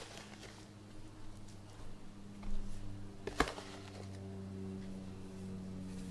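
Dry rub being shaken out of a plastic tub onto raw pork ribs: faint patter and small knocks, with one sharp tap of the plastic tub about three and a half seconds in, over a steady low hum.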